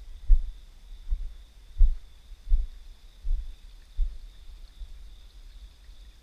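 Footsteps of a person walking, heard as dull low thuds about every three-quarters of a second that fade out after about four seconds.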